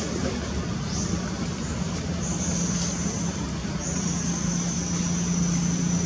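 Steady outdoor background of a low motor hum like road traffic, with a thin high-pitched buzz that comes and goes in stretches.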